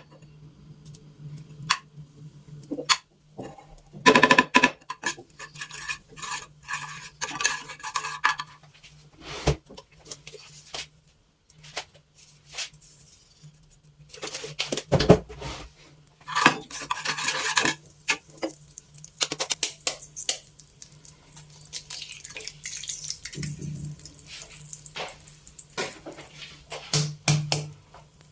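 Dishes and cutlery being handled: a string of separate clinks and knocks, some ringing briefly, over a faint steady low hum.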